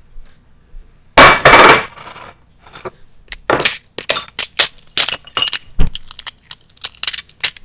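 Close-up crunching of a taco being eaten: a loud crackling burst about a second in, then a run of short, irregular crunches.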